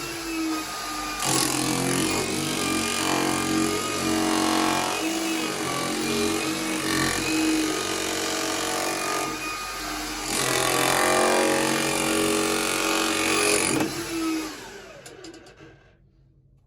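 Hilti TE-700 AVR electric demolition hammer chiselling into rock, running loud and steady with short breaks in its note, then dying away near the end.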